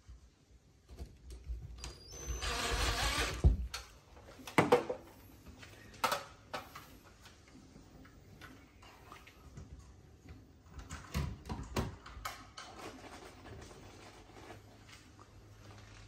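A cordless drill-driver runs once for about a second and a half, beginning about two seconds in, as it drives into the ceiling to fix a smoke alarm's mounting base. It is followed by scattered sharp clicks and knocks as the alarm is handled and fitted overhead.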